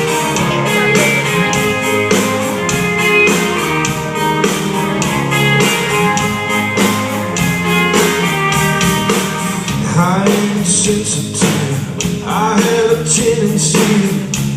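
Live band playing a country song intro, guitars over a steady drum beat; a man's singing voice comes in about ten seconds in.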